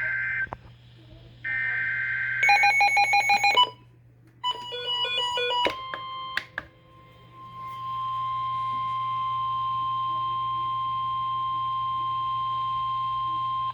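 NOAA Weather Radio alert sequence: two short buzzy bursts of SAME digital header data, then a run of rapid electronic beeps. After that comes the steady 1050 Hz warning alarm tone, held for about six seconds.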